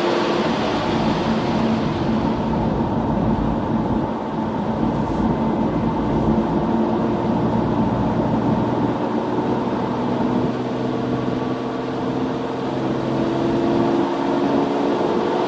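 Car driving at high speed on a motorway: a steady engine drone over tyre and wind noise, with the engine note rising slowly near the end as it pulls harder.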